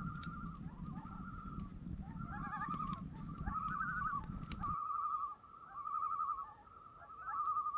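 Common loons giving tremolo calls, a string of repeated quavering phrases, with a second, higher call overlapping about two and a half seconds in. A campfire crackles and pops underneath until it cuts off about five seconds in.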